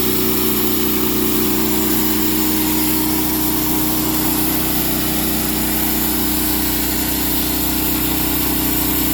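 Sawmill engine running steadily at about a quarter throttle while the 48-inch mill feeds slowly through a cedar log.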